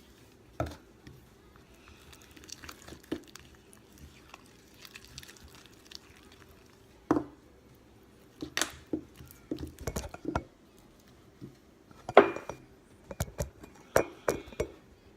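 A utensil clinking and knocking against a mixing bowl as slime is stirred: scattered irregular taps with quiet stretches between them.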